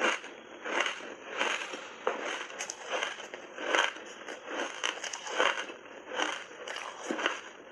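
Ice chunks coated in milk powder being bitten and chewed, a rapid run of crisp crunches about two a second.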